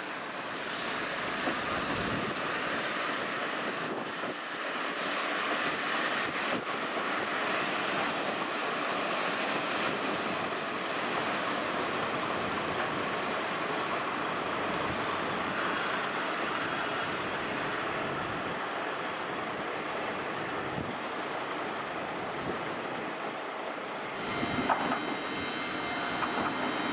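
Kominato Railway diesel train running along the line, a steady rolling and engine noise, with a few faint high tones coming in near the end.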